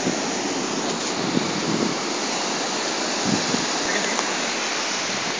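Steady rushing of ocean surf breaking on a sandy beach.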